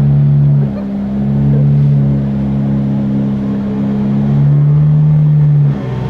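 Motorboat engine running steadily under way, a low even drone that dips in loudness briefly about a second in and again near the end.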